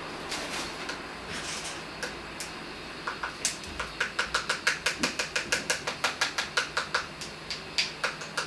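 A metal spoon clicking rapidly against a small ceramic bowl, about five or six clicks a second for about four seconds, then a few more clicks near the end, over a steady low background hum.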